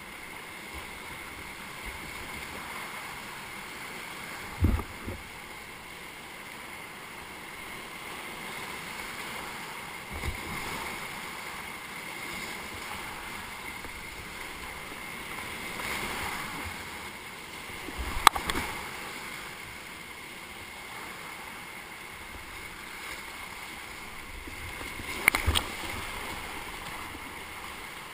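Whitewater rapids rushing steadily around a kayak, with a few sharp knocks or splashes standing out, the loudest about eighteen seconds in.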